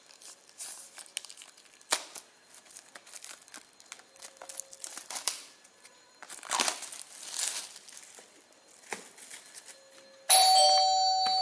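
Plastic shrink wrap being torn and peeled off a disc box set: crinkling and rustling with small clicks. About ten seconds in, a loud bell-like chime rings out and slowly fades.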